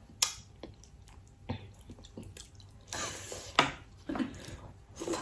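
Eating sounds close to the microphone: scattered wet clicks and squishes as seafood boil is handled and chewed, with a brief rustle and a sharper click about three seconds in.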